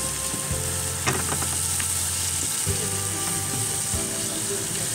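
Prawns and onions frying in tempoyak in a wok, a steady sizzle, while a wooden spatula stirs them with a few scrapes and knocks against the pan.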